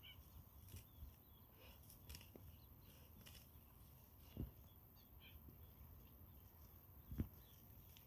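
Quiet pasture ambience with faint scattered bird chirps, and two soft low thumps, one about four seconds in and a louder one about seven seconds in.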